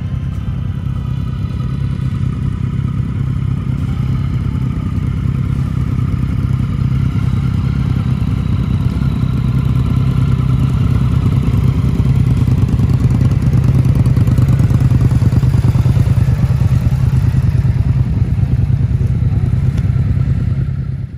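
Motorcycle engine running at a steady idle, a low pulsing rumble that slowly grows louder over the first half.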